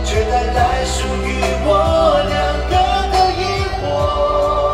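Live concert music: a band playing a pop song with a steady drum beat, a bass line and a wavering melody line.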